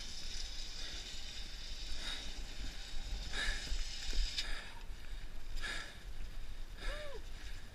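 Wind rumbling on the helmet camera's microphone, with short hissing sounds about once every second or so and a brief rising-and-falling squeak near the end.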